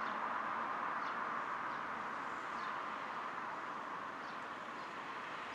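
Steady outdoor background noise, slowly fading, with a few faint, short, high bird chirps.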